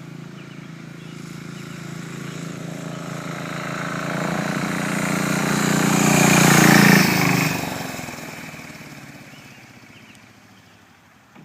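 Intercooled turbo diesel motorcycle with a Yanmar engine riding past. Its steady, even engine note grows louder as it approaches, is loudest about seven seconds in as it passes, then drops away and fades. A brief click comes right at the end.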